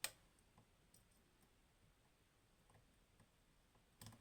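Small metal clicks of a lock pick working the pins of a Goal Grand V lock, a Japanese high-pin-count lock: one sharp click at the start, a few faint ticks, and a quick double click near the end.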